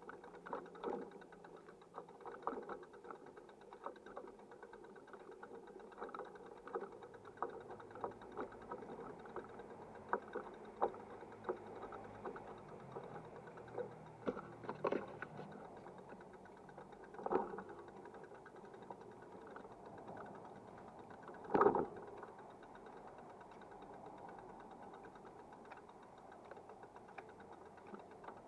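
Irregular rattles and knocks from a vehicle rolling slowly over a cobblestone lane, with a steady running noise underneath. The knocks come roughly once a second at first, then more sparsely, with one louder jolt past the middle.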